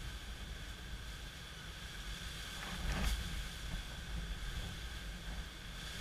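Strong gusty wind from an approaching hurricane, rumbling on the microphone over a steady hiss of wind and rain, with a stronger gust about three seconds in.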